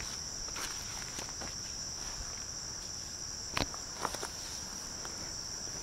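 Steady high-pitched trilling of field insects in summer grass, with a few soft knocks about three and a half to four seconds in.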